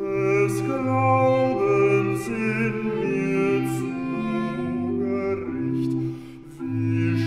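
Bass singer singing a slow German Christmas hymn, accompanied by violin and organ, with a brief dip between phrases near the end.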